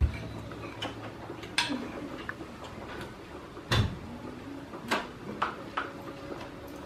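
Metal spoon clinking and scraping against a bowl while eating: scattered sharp clicks at irregular intervals, the loudest about three and a half seconds in.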